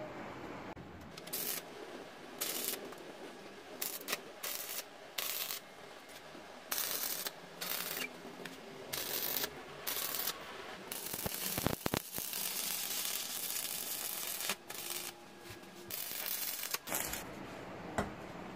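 Electric arc welding on a steel plate, crackling in a series of short bursts, like tack welds, then a longer run of several seconds in the second half. A few sharp clicks sound about two-thirds of the way through.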